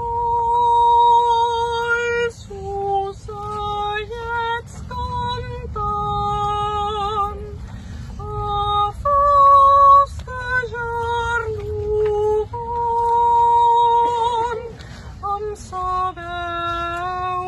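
A woman singing solo and unaccompanied in a high, clear voice, one melody line with long held notes.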